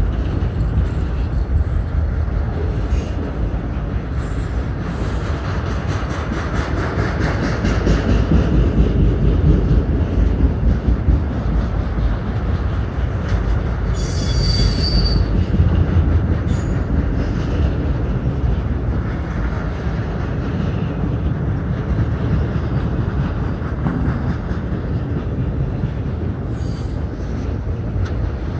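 Freight train of autorack and flat cars rolling past at speed: a steady heavy rumble and rattle of steel wheels over the rails. About halfway through there is a brief high-pitched wheel squeal.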